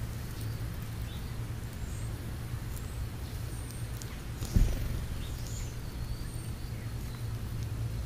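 House sparrows chirping faintly now and then over a steady low background rumble, with a single dull thump about halfway through.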